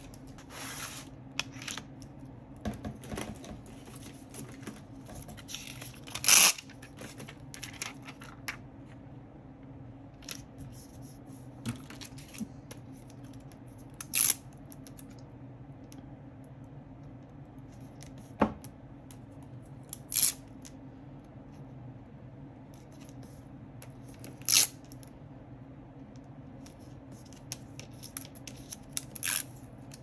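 Stationery and paper handling while a paperback is annotated: faint scratching and rustling, with about four brief, louder strokes spaced several seconds apart and a sharp click partway through, over a low steady hum.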